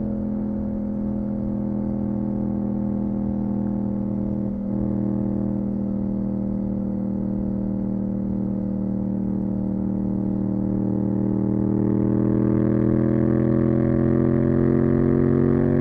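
Yamaha MT-07's 689 cc parallel-twin engine running through a full Akrapovič titanium exhaust, holding a steady note while cruising. There is a brief dip about four and a half seconds in, and the revs rise gradually over the last few seconds as the bike pulls in gear.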